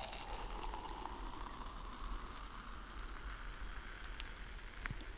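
Hot water poured from a kettle into a metal camping mug of instant oatmeal: a steady splashing trickle whose pitch rises slowly as the mug fills.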